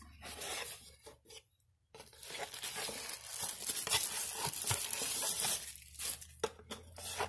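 A cardboard box being opened and packaging rustled and crinkled as a small speaker is lifted out. There are a few scrapes and taps in the first second and a half, then about four seconds of steady rustling, and some sharp taps near the end.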